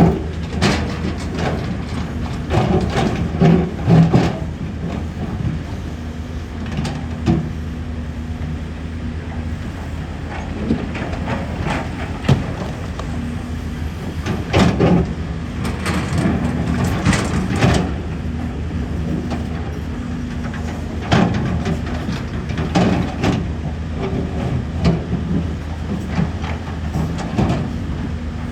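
Hydraulic excavators' diesel engines running steadily, with irregular metallic clanks and knocks throughout.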